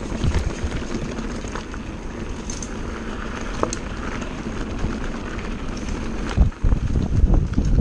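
Mountain bike rolling over a rocky dirt trail: a steady low rumble of wind buffeting the bike-mounted camera's microphone and tyres on loose gravel, with scattered small clicks and rattles from the bike, briefly dropping away about six and a half seconds in.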